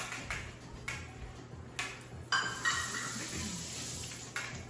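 Light kitchen clatter of dishes and utensils being handled, with a few soft knocks. A faint high ringing tone comes in a little over two seconds in.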